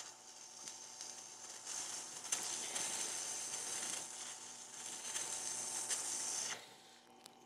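Water-cooled wet grinding wheel grinding a small metal extruder drive gear held against the stone: a wet hissing scrape builds up, holds for several seconds, then stops suddenly near the end as the part is lifted off, leaving the grinder's motor hum.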